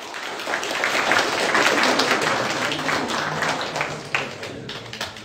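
Audience applauding: many hands clapping together, building over the first second or two and then dying away.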